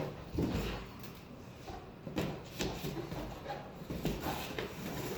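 Parts of an umbrella display stand being handled and fitted together: a series of scattered knocks and rustles as pieces are picked up and lined up.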